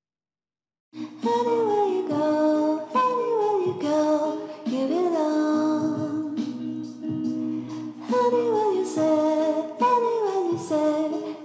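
Background music begins about a second in: a melody gliding between notes over steady low chords.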